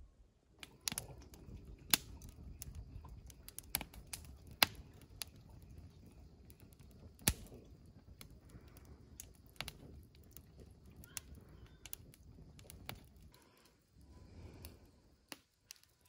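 Wood campfire crackling: irregular sharp snaps and pops over a low rush of flames.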